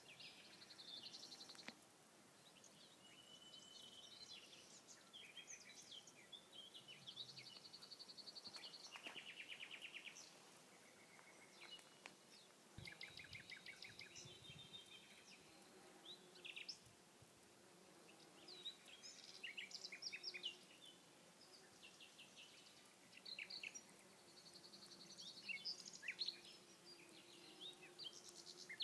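Several songbirds singing at once, a faint chorus of trills, rapid repeated notes and short whistled phrases.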